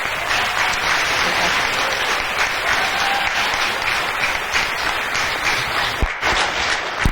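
An audience of schoolchildren clapping together in steady, continuous applause, with a couple of sharper knocks near the end.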